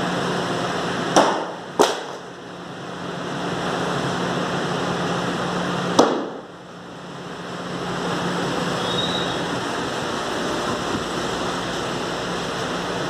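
Thrown hatchet striking a wooden plank target: two sharp knocks about half a second apart just over a second in, and another single knock about six seconds in. A steady background hum and hiss runs throughout.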